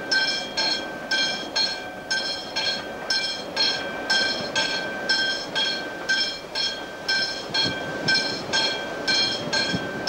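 Freight train of hopper wagons running through a curve, its wheels squealing in a high ringing tone that pulses about twice a second over the rumble of the wagons.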